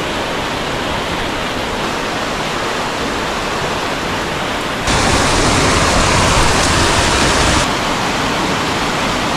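Steady rush of a mountain stream's cascading water. It jumps abruptly louder and brighter about five seconds in, then drops back nearly three seconds later.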